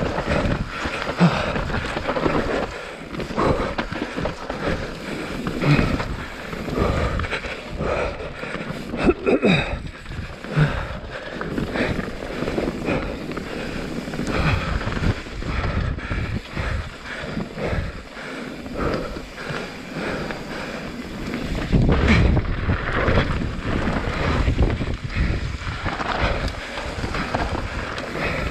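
YT Jeffsy 27.5 mountain bike descending a dirt singletrack at speed: tyre noise on the dirt, rattling and knocking of the bike over roots and rocks, and wind on the microphone. It gets louder and rougher about two-thirds of the way through.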